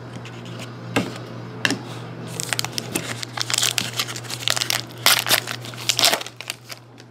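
A trading-card pack's wrapper being torn open and crinkled by hand. A few sharp crackles come first, then dense crinkling for about four seconds, loudest near the end, where it stops.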